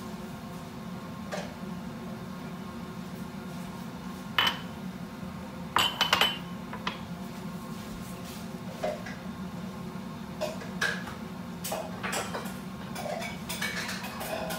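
Small glass jar and ceramic pots clinking and knocking as they are set down on a kitchen countertop: a sharp clink about four seconds in, a louder cluster of clinks around six seconds, then lighter knocks. A steady low hum runs underneath.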